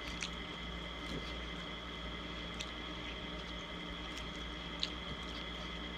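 Quiet chewing of a salad, with a few faint wet mouth clicks over a steady background hiss and a faint high whine.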